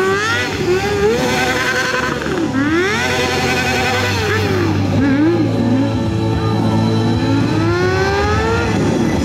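Stunt sport motorcycle's engine revving up and down again and again, its pitch climbing and falling several times with the longest climb near the end, while the rear tyre is spun in a smoky burnout.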